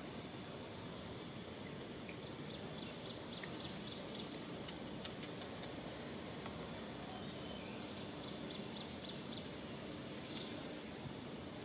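Outdoor ambience: a steady faint background hiss with two quick series of faint high chirps and a few sharp clicks near the middle.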